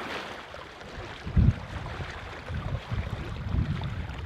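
Water lapping and splashing around a kayak, with wind buffeting the microphone in irregular low thumps, the strongest about a second and a half in.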